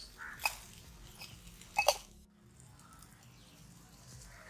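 Wood and charcoal fire under spit-roasting whole chickens crackling, with a few sharp pops in the first two seconds; after that only faint outdoor background.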